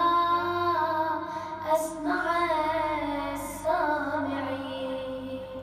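A boy chanting a Ramadan supplication (du'a) in a slow melodic recitation, holding long ornamented notes with two short breaks.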